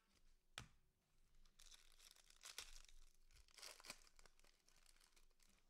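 Faint tearing and crinkling of a foil trading card pack wrapper as gloved hands rip it open. There is a single sharp click about half a second in, then a couple of seconds of crackling.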